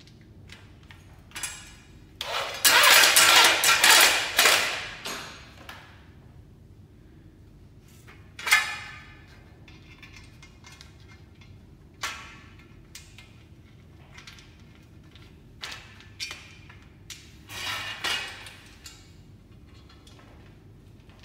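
Corded electric drill-driver running in bursts while driving screws into the aluminium shelf frame's end plate: one long burst of about two seconds near the start, then several short bursts and knocks.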